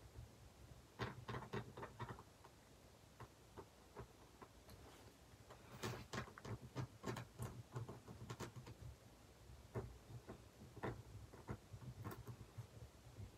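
Red pen tip ticking and scratching on paper in quick, short, irregular strokes while colouring in, over a faint low hum.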